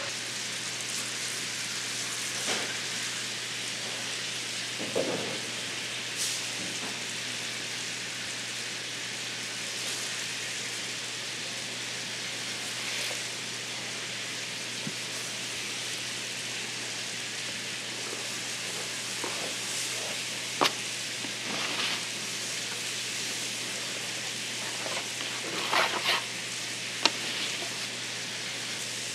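Steady sizzling hiss of hot oil frying in a deep fryer, over a low steady hum, with occasional sharp knocks and clatters.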